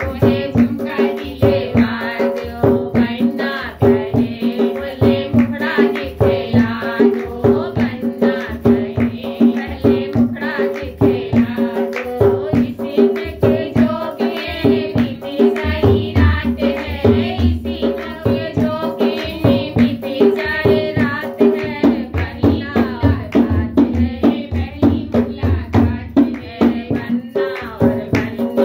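Women singing a banna-banni wedding folk song together, with hand-clapping and a drum beat keeping a steady rhythm over a held drone.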